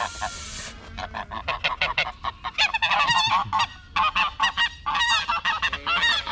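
Domestic goose honking in quick runs of short, harsh calls, in several bouts, after a brief hiss at the start. The goose is agitated and looks ready to attack.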